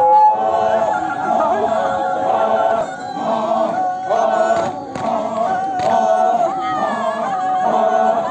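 A group of men's voices chanting together in long, held notes, some sliding down in pitch: the chant of a Sümi Naga Kighile war dance.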